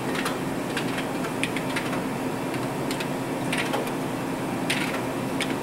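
Steady machine hum with scattered light mechanical clicks at irregular intervals.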